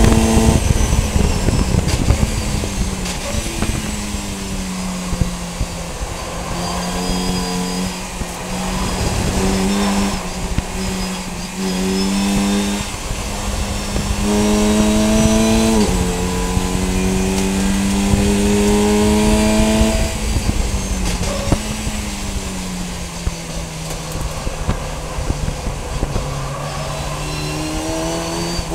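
VW Fun Cup race car's engine heard from onboard at racing speed, its pitch climbing slowly through the gears and dropping sharply at an upshift about halfway through, then falling away and climbing again near the end, over steady road and wind noise.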